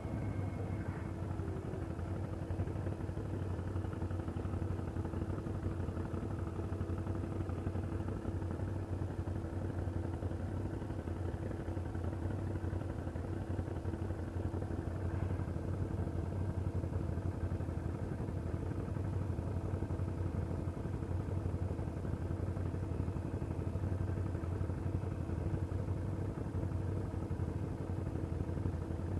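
ATV engine running at a steady speed, its hum holding an even pitch throughout.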